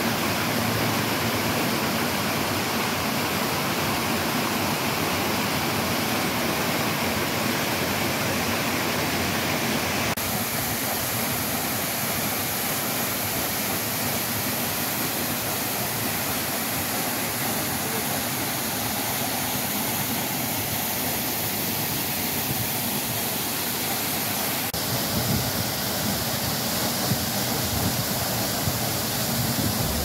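Waterfall pouring into a plunge pool: a steady rush of falling water, its tone shifting slightly about ten seconds in and again near twenty-five seconds.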